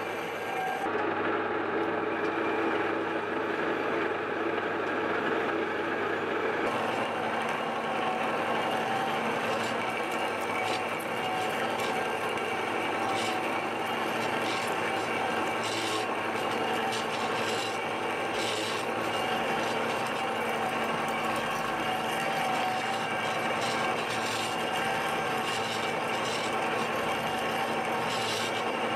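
Metal lathe parting off a large rusty steel cylinder with a hand-ground cobalt parting tool: a steady scraping cut over the lathe's running hum, with scattered short ticks from about a third of the way in.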